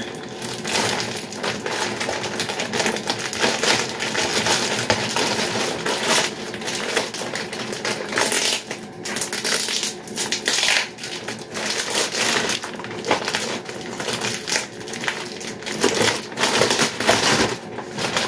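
Clear plastic poly bag crinkling and crackling as hands pick at its tape and pull it open, in a dense unbroken run of small crackles.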